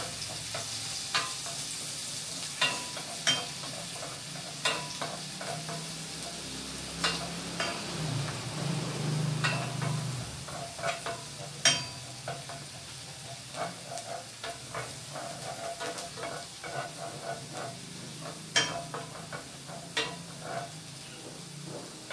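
Garlic sizzling in melted butter in a stainless steel pan with a steady hiss, while a wooden spatula stirs it, knocking against the pan in irregular ticks.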